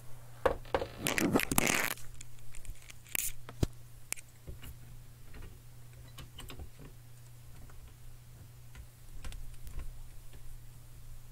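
Rustling and scraping of objects being handled for about two seconds, then a couple of sharp clicks and scattered faint taps, over a steady low electrical hum.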